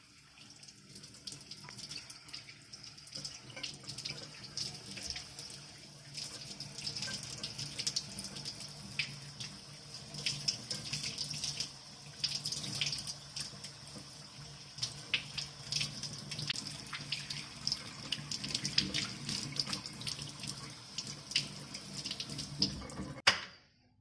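Kitchen tap running into a stainless steel sink while raw chicken is rinsed and rubbed by hand under the stream, with irregular splashes of water off the meat and hands. The water sound cuts off abruptly near the end.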